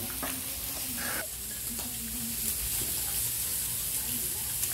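Meat sizzling on a tabletop grill, a steady hiss.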